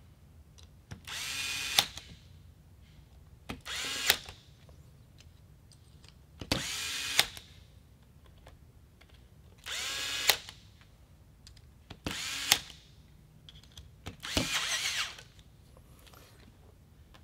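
Cordless electric screwdriver tightening screws with its clutch set to torque setting 8. Six short whirring bursts, each ending in a sharp click as the clutch slips at the set torque.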